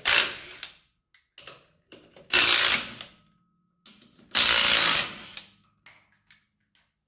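A mechanical workshop tool running in three short bursts about two seconds apart, with light clicks and knocks in between.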